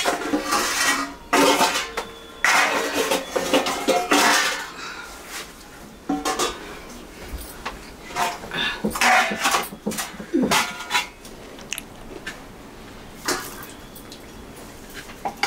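Stainless steel plates clattering and ringing as they are set down and pushed into place one after another on the floor, most densely in the first half. Near the end come lighter taps and scrapes of a spoon serving rice onto the steel plates.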